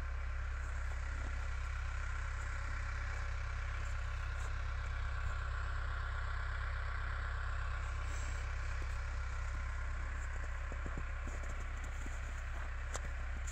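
Cummins diesel engine of a skid steer idling steadily, freshly started.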